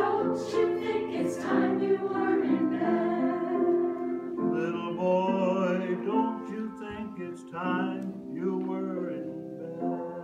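A mixed choir of men's and women's voices singing together, with notes held and changing every half second or so.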